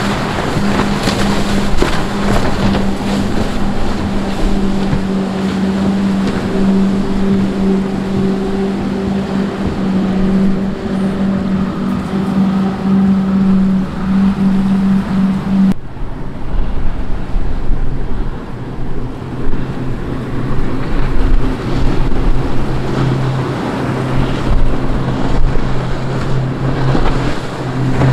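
Multiple outboard motors on center-console boats running at speed, a steady engine hum over rushing water and wake spray. About 16 s in the sound cuts to a lower, steady hum: a second boat, an HCB center console with four Yamaha outboards.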